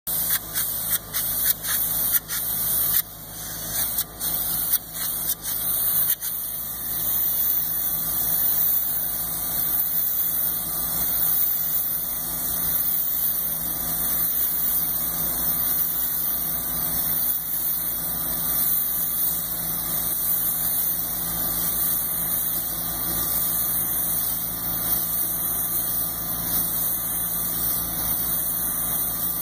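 Polyurea spray gun hissing as the coating is sprayed onto a steel tank, triggered in short bursts for the first six seconds or so and then held on steadily. An engine hums steadily underneath.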